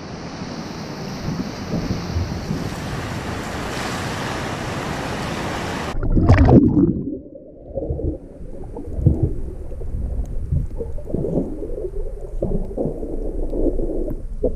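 Surf washing onto a sandy beach, with wind on the microphone. About six seconds in there is a brief loud rush, then muffled underwater sound: low sloshing and water movement with all the high sounds gone.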